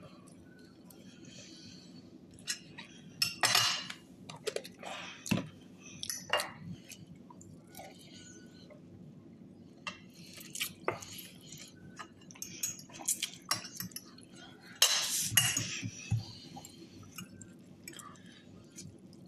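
Cutlery clinking and scraping against plates during eating: scattered short clinks, with louder bursts of clatter about three seconds in and again near fifteen seconds.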